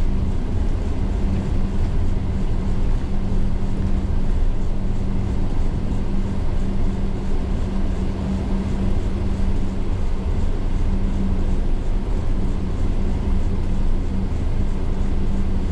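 Tour coach driving along, heard from inside the cabin: a steady engine drone with a constant low hum, over road and tyre noise.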